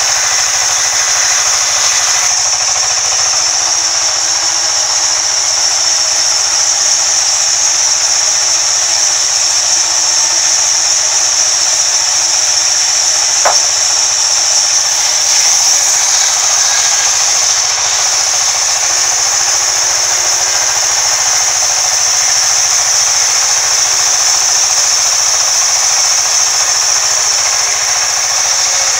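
Sawmill vertical band saw running and ripping lengthwise through a thick wooden slab: a loud, steady high hiss with a single sharp tick about halfway through.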